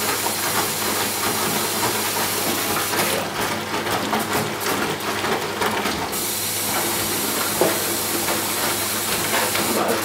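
Eudora Luftikus 455 S washer-dryer running: a steady hiss with water-like rushing over a low hum, rougher for a few seconds in the middle.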